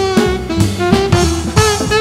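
Alto saxophone playing a swing jazz melody in short notes, some bent downward in pitch, over an upright double bass and a drum kit.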